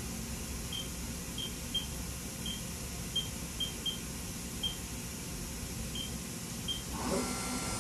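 Short, high electronic beeps at uneven intervals, about a dozen in all, from the Haas CNC control's keypad as keys are pressed. They sound over the steady hum of the idle machining center. A louder machine sound comes in near the end.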